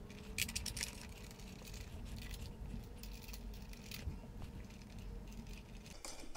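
Faint, scattered small metallic clicks and rattles of a washer and nut being handled and threaded onto a backrest mounting bolt by hand.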